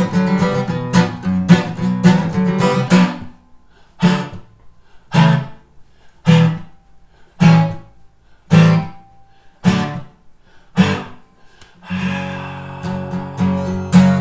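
Acoustic guitar being strummed. After about three seconds of steady strumming it breaks into single struck chords about once a second, each left to ring out before the next, and steady strumming resumes near the end.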